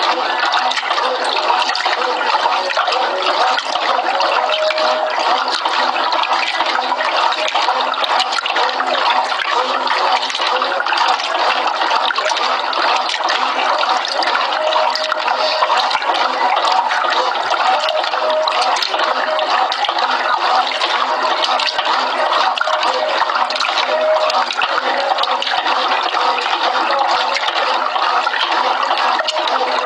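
Brastemp Clean 6 kg top-loading washing machine agitating a double duvet, water sloshing and churning steadily in the tub.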